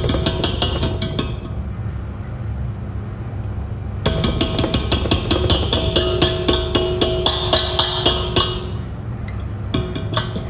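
Background music with a steady percussive beat of about four clicks a second over held tones and bass. The clicks thin out from about a second in and return near the middle, then fade again near the end.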